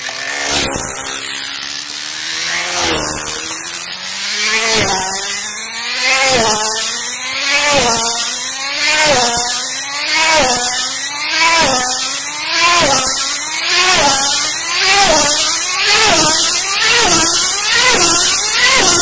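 High-speed model car circling past again and again, its motor pitch swooping down each time it passes. The passes come quicker and the pitch climbs as it speeds up.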